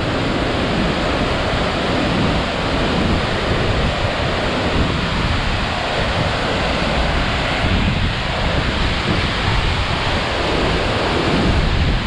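Waterfall in flood: a heavy flow of muddy water pouring over a rock ledge close by, a steady, loud rush of falling water and spray.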